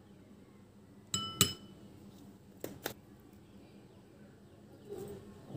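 A plastic spoon tapping against a small glass bowl: two ringing clinks a little after a second in, then two lighter taps just under three seconds in.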